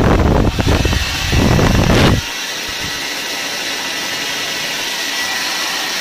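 Hair dryer running on its stronger hot-air setting: for about the first two seconds its air blast hits the microphone as loud wind buffeting, then a steady whoosh with a faint high whine.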